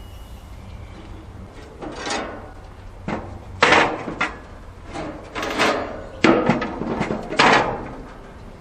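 Cast iron cooking grates being set back into a propane gas grill, clanking and scraping against the grill's metal frame and each other several times.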